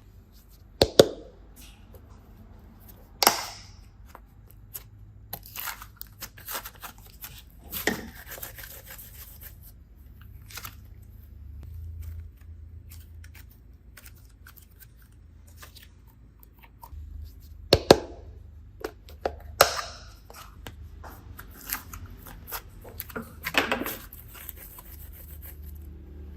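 Hands handling small containers and packaging for slime-making: scattered sharp clicks and taps, a handful of them loud, with tearing and crinkling in between.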